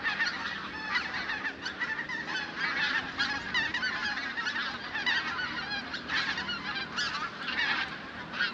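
A large flock of birds calling continuously, many short calls overlapping into a dense chorus.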